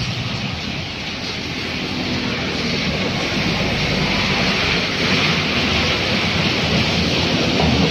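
A car's tyres hissing through a flooded road and throwing up a rushing spray of water, which swells in the middle and then eases, over passing motorcycle engines and steady rain.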